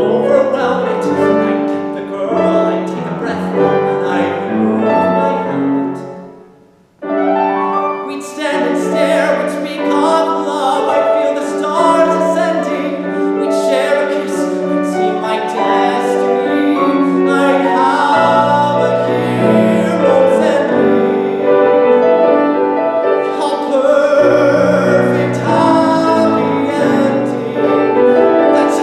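A male singer sings a musical-theatre song with a Steinway grand piano accompanying. About six seconds in, the music breaks off into a short silence of under a second, then voice and piano come back in.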